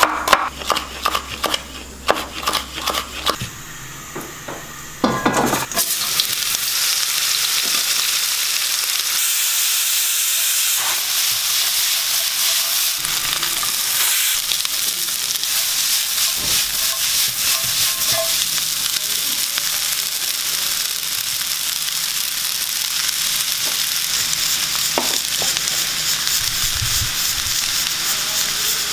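A cleaver chopping onion on a wooden cutting board in quick, regular strokes for the first few seconds. Then, about five seconds in, the steady sizzle of vegetables and chicken stir-frying in a hot wok begins and continues, with a few scattered knocks.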